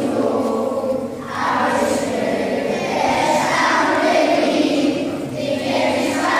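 Group of children singing together, with a short break a little over a second in.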